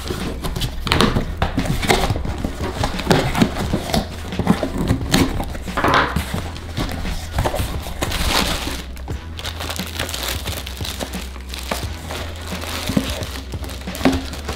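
A knife slitting packing tape and a cardboard box being opened, then plastic wrap and bubble wrap crinkling as wrapped packages are pulled out of the box.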